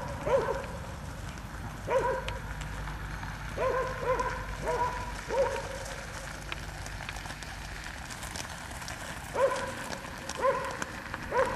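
Small horse-drawn cart rolling along a gravel road with a steady low rumble. Over it come short, pitched animal calls, about nine at irregular intervals, which are the loudest sounds.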